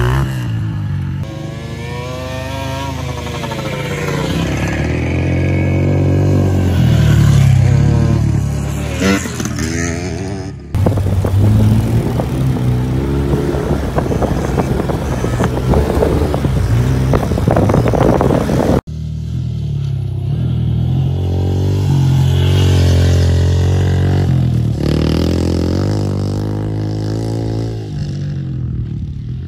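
Small dirt bike engines revving up and down through the gears as they ride a sandy track. The sound comes in three clips that cut about 11 and 19 seconds in; the middle clip is closer and rougher, from right behind the riders.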